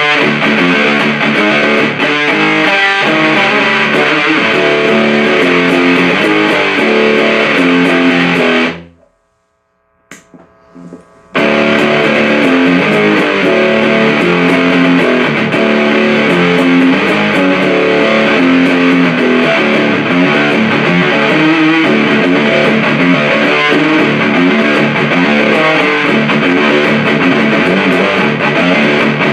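Electric guitar played through a Big Muff-style fuzz pedal, a heavily fuzzed, distorted tone playing continuous riffs. The playing stops about nine seconds in, leaving a couple of seconds of silence, then starts again.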